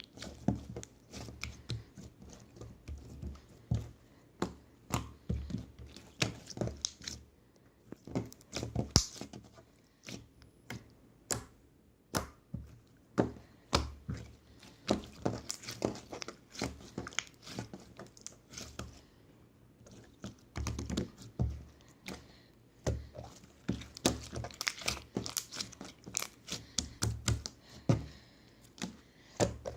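Glitter chewing-gum slime being worked by hand, squished, stretched and pulled apart, giving irregular sticky pops, clicks and tearing sounds, with a few brief lulls.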